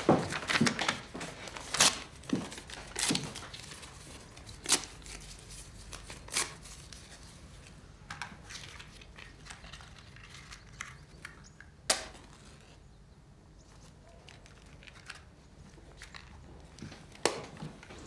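Rustling of cloth and paper being handled, with about half a dozen sharp clicks and knocks scattered through it and quieter stretches in between.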